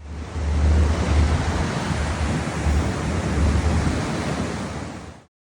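Strong wind buffeting the microphone: a steady rush of air with heavy, uneven low thumping, cutting off abruptly near the end.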